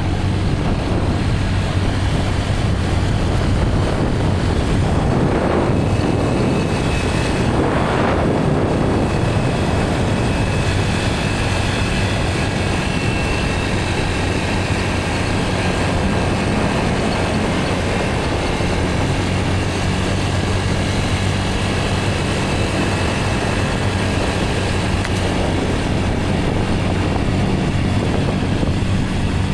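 A vehicle engine running at a steady speed with a low hum, under constant road and wind noise, with a brief louder rushing swell about six to eight seconds in.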